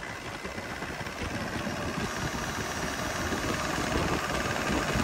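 Yanmar 4TNV98 turbocharged four-cylinder diesel engine running on a test stand, growing steadily louder as its throttle is opened.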